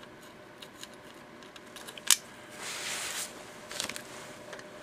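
Small metal hardware clicking and tapping while nuts and bolts are handled and fitted to a circuit board, with one sharp click about two seconds in and a short rustle just after.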